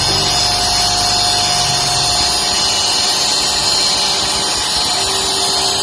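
A mini CNC mill's 300 W spindle runs at a steady high whine while its cutter mills aluminium, with a dense cutting noise. A couple of mid-pitched tones come and go underneath.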